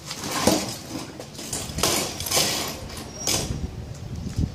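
Handling noises from the fiberglass lower engine cowling being worked at by hand: a string of about five short scrapes and knocks, with a thump near the end.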